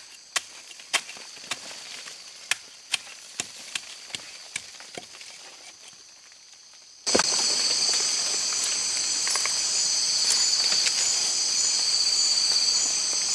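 A machete blade scraping and tapping against tree bark in sharp, irregular strokes, about two a second, as bark plates and growths are cleared off the trunk. About seven seconds in, this cuts abruptly to a loud, steady, shrill rainforest insect chorus that carries on to the end.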